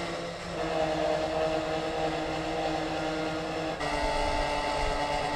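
A vehicle engine running steadily with a hum of several held tones. Its sound changes abruptly about four seconds in.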